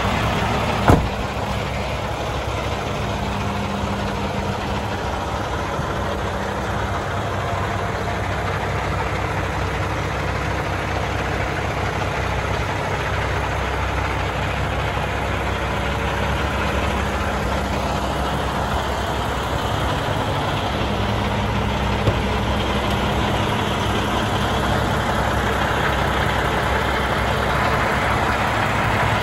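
Diesel engine of a 2018 International LT truck idling steadily, with a sharp knock about a second in.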